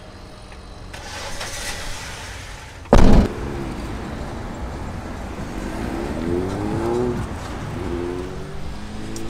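Car driving in traffic with steady road noise, its engine pitch rising and falling in the second half as it gathers speed. A single loud, short thump about three seconds in.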